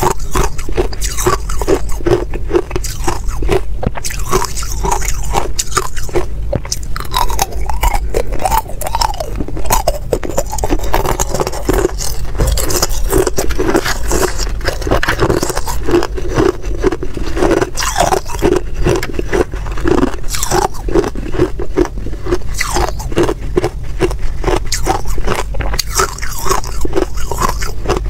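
Hard clear ice crunched and chewed between the teeth close to a clip-on microphone, mixed with ice cubes cracked and scraped apart in a silicone tray, a dense run of sharp cracks throughout.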